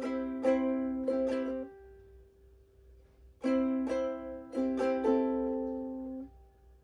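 Ukulele chords strummed and left to ring: three strums in the first second and a half, a pause of almost two seconds, then three more strums that fade out.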